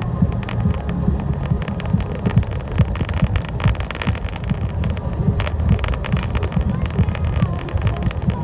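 Road and engine rumble inside a moving car's cabin, low and steady, with frequent small clicks and rattles.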